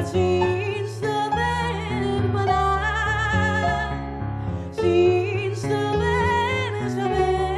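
A woman singing a melody with vibrato, accompanied by piano chords played on an electric keyboard.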